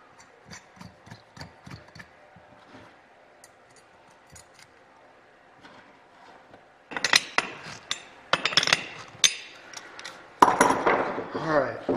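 Small metal clicks of washers and nuts being fitted by hand onto the wheel-half bolts of a Matco aircraft wheel. From about seven seconds in come louder bursts of metal clatter from a hand tool as the nuts are run down.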